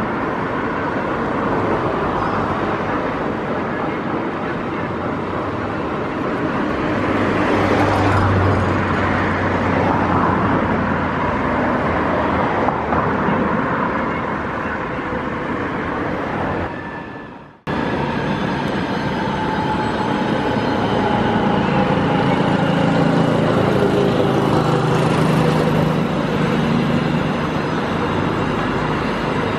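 Steady outdoor road traffic noise, with no one speaking. It fades out about 17 seconds in and comes back at once, now with a steady engine hum of several tones.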